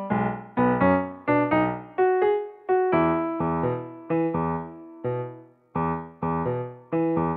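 Background music: a light, bouncy tune of short struck notes, each fading quickly, in a steady rhythm.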